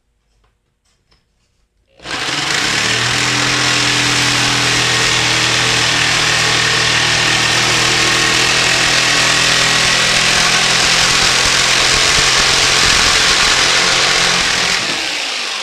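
Electric jigsaw cutting aluminium sheet: after a few light clicks it starts about two seconds in and runs loud and steady, with a hum and a harsh hiss of blade on metal, then slows to a stop near the end.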